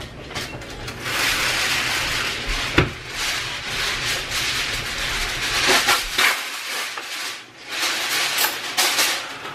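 Kitchen handling noises: rubbing and rustling with scattered knocks, and a kitchen drawer being pulled open near the end.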